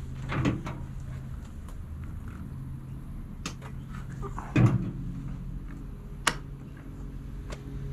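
Handling clicks and a thump as a rotary DC isolator switch beside a solar inverter is turned off, with a sharp click about six seconds in as the switch snaps over, isolating the panels' DC supply before testing. A steady low hum runs underneath.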